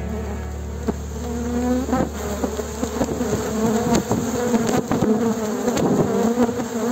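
Honeybees buzzing close by around an opened hive, many wing-beat hums overlapping and wavering up and down in pitch, with a few short clicks. The bees are disturbed by the colony being opened.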